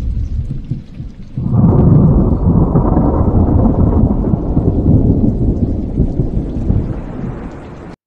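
AI-generated thunderstorm sound effect made by the HunyuanVideo-Foley model: lighter rain-like patter at first, then a long, heavy low rumble of thunder from about one and a half seconds in. The rumble slowly fades and cuts off abruptly at the end.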